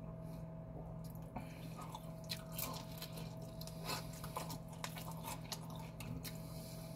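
A person chewing and biting fried chicken, with soft wet smacking and scattered small clicks as the meat is torn apart by hand, over a faint steady hum.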